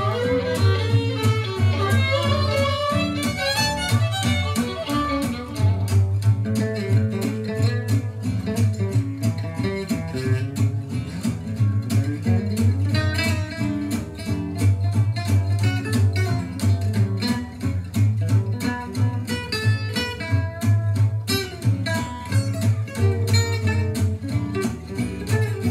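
Music with guitar and violin over a strong bass line, played back from cassette on a Nakamichi DR-2 tape deck.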